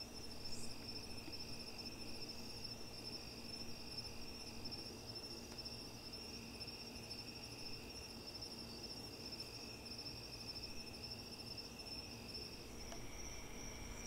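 Night insects, crickets, chirping steadily in a continuous chorus: a high, fast-pulsing trill over a lower, smoother one that drops slightly in pitch near the end.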